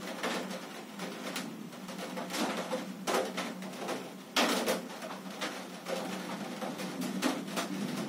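Downpour heard through a closed window: a steady hiss with irregular knocks and splashes of rain, the loudest about four and a half seconds in.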